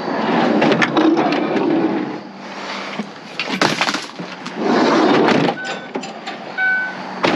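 Clattering, crinkling and knocking of packages and containers being handled and dropped during a dumpster dive. Near the end a vehicle's reversing beeper starts sounding about once a second.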